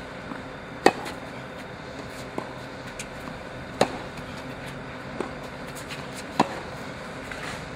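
A tennis ball struck with a racket in a groundstroke rally on a hard court. Three sharp, loud hits come about two and a half seconds apart, with fainter knocks of ball bounces and the far player's returns between them.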